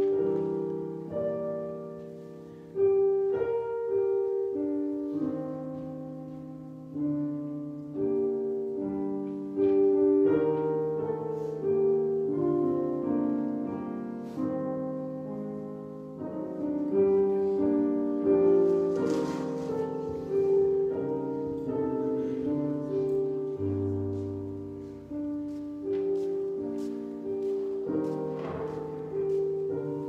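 Piano playing a slow piece, each chord struck and left to ring and fade before the next.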